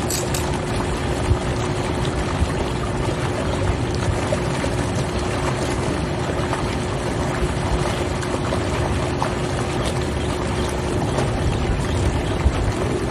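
Hot tub jets running, a steady rush of bubbling, churning water with a constant hum under it.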